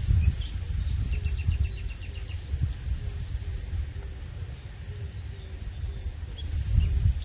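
Wind rumbling on the microphone, with small birds chirping: a quick run of short high chirps about a second in, and a faint chirp repeating every second or so.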